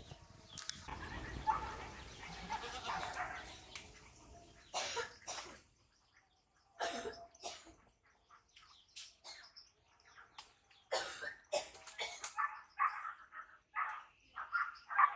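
Scattered rustles and sharp clicks while fruit is picked from a tree, then a quick run of short animal calls in the last few seconds.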